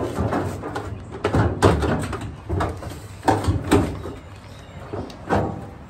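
Sheet-metal dryer cabinet parts being handled: a run of irregular clanks and knocks from the front bulkhead and drum.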